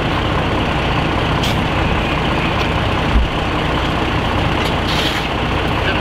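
Fire truck's diesel engine running steadily, a continuous heavy hum, with a single short low thump about three seconds in.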